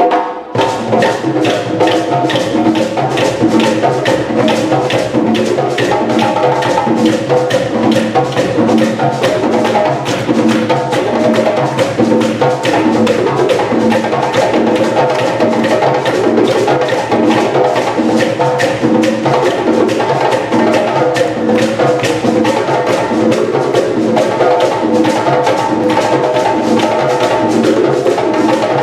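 West African drum ensemble playing a fast, steady, driving rhythm, with pitched wooden strikes repeating over the drums.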